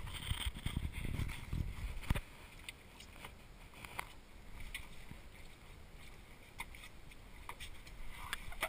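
Water lapping quietly against the side of a small boat, with a few light clicks. A low rumble is louder over the first two seconds and again near the end.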